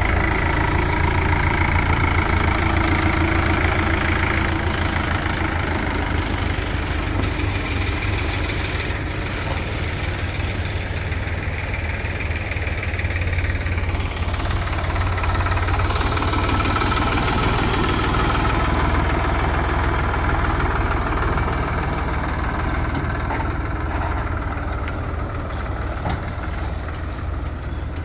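Diesel engines of a backhoe loader and a farm tractor running steadily at low speed while the loader works.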